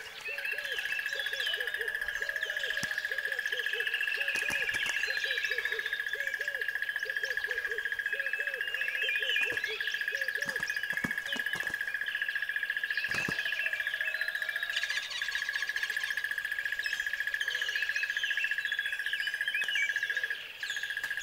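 Many birds chirping and calling, with repeated short lower calls, over a steady high-pitched tone.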